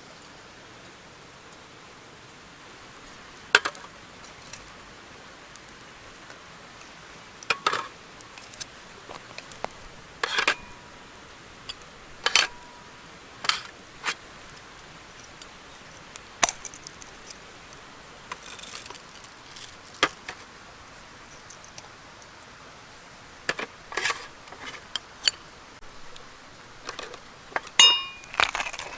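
Scattered sharp metallic clinks and knocks, some ringing briefly, as camp gear is handled, with a cluster of clinks near the end over a steady outdoor hiss.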